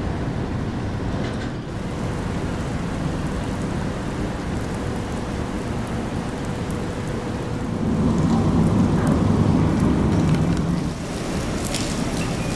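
Steady rain, a continuous hiss, with a low rumble that swells about eight seconds in and dies away about three seconds later.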